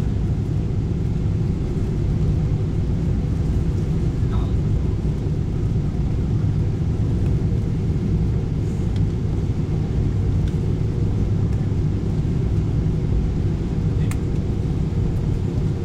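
Steady low rumble of engine and airflow noise inside the cabin of a Boeing 777-300ER descending on approach, with a faint steady hum above it.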